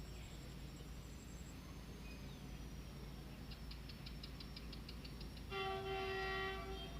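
Horn of a WDG-4G diesel locomotive sounding one held blast of about a second and a half near the end, a chord of several steady tones, over a steady low rumble. A run of faint rapid ticks, about eight a second, comes just before it.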